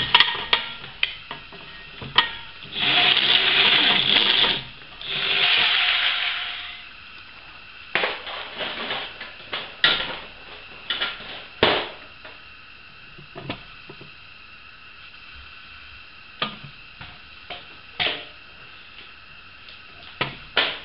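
Electric drill running in two bursts of about two seconds each, a few seconds in, its bit boring the remaining stripped thread out of an engine-mount bolt hole to prepare it for a thread-repair insert. Scattered sharp clicks and knocks follow.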